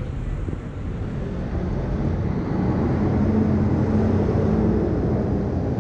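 Street traffic, with a vehicle's engine hum growing louder as it passes close, loudest in the middle, then easing off a little near the end.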